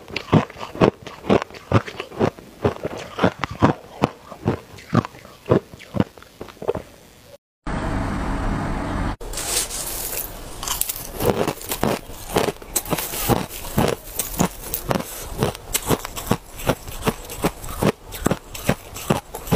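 Hard ice being crunched and chewed in the mouth, a rhythmic crunch about three times a second. After a short break with a steady hiss about halfway through, it turns to denser, sharper crunching of larger ice chunks.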